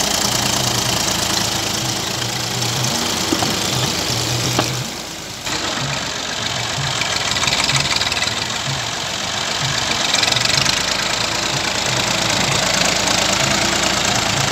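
Massey Ferguson 240 tractor's three-cylinder diesel engine running with a knocking diesel clatter as the tractor pushes soil with its rear blade. The sound dips briefly about five seconds in, then carries on.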